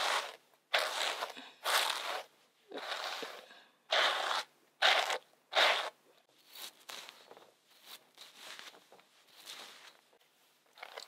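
Brush strokes through a wig's hair with a plastic detangling brush: a run of short strokes, each under a second, about eight in the first six seconds, then fainter, sparser ones.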